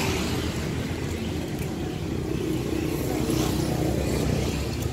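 An engine running steadily, a low even rumble.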